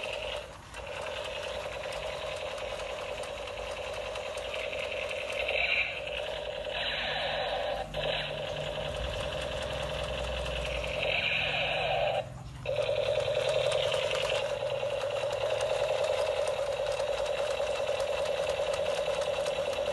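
Battery-powered toy machine gun firing its electronic sound effect: a rapid, buzzing rat-a-tat that runs while the trigger is held, breaking off briefly three times as the trigger is released and pressed again.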